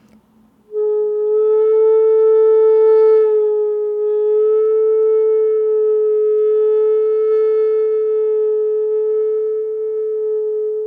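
Hitoyogiri, an end-blown Japanese bamboo flute, holding one low note for about ten seconds, starting just under a second in. The note is played with yuri, a slow wavering of the tone, here in bigger waves, with a brief dip and swell about three seconds in.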